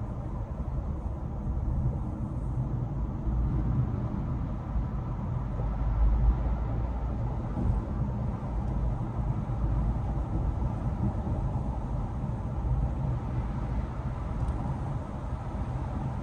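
Steady in-cabin road and engine noise of a car cruising at highway speed: a low rumble of tyres on pavement, swelling slightly about six seconds in.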